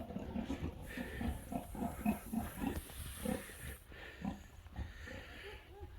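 A pig grunting, a string of short low grunts about three a second, thinning out in the second half.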